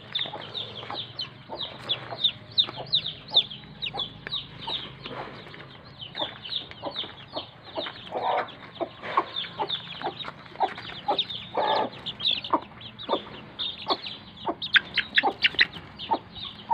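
Newly hatched chicks peeping without pause, short high notes falling in pitch, several a second. A mother hen clucks lower now and then.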